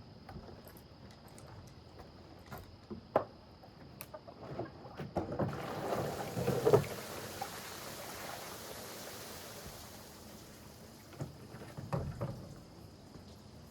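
Water running into a small swimming pool, a splashing hiss that swells about halfway through and then fades, with a few sharp knocks.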